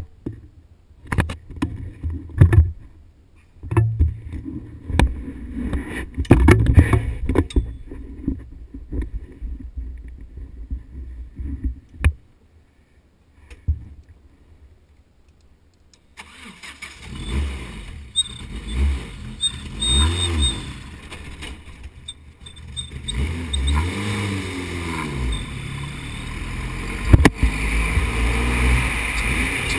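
Knocks and low bumps of the camera being handled and fixed on the car. About 16 seconds in, the Formula Renault single-seater's engine starts. It runs with several throttle blips that rise and fall in pitch, then keeps running as the car rolls off.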